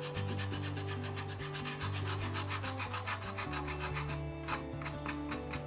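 A paintbrush scrubbing white weathering powder into a model's concrete-block wall: rapid, rhythmic scratchy rubbing strokes, with a brief let-up about four seconds in.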